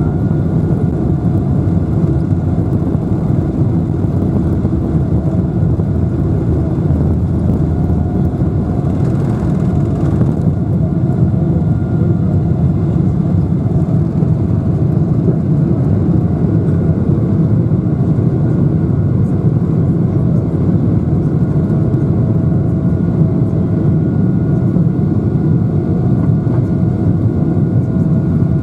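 Cabin noise of a Boeing 777-300ER's GE90-115B engines at takeoff thrust, heard inside the cabin behind the wing: a loud, steady, deep rumble with faint steady tones above it. It runs through the takeoff roll, liftoff and initial climb.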